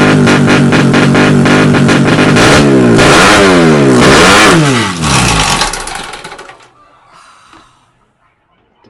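Drag-racing motorcycle engine at high revs, steady at first, then its pitch drops and rises a couple of times before it fades away over the last few seconds.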